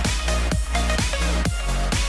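Electronic dance music with a steady four-on-the-floor kick drum, about two beats a second, over a sustained deep bass.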